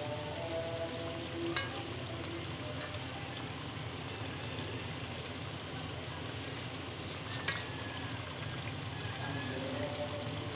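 Kebabs cooking in oily masala gravy in an aluminium pot, a steady sizzling as the gravy is cooked down until the ghee rises to the top. Two short sharp clicks, about one and a half seconds in and again about seven and a half seconds in.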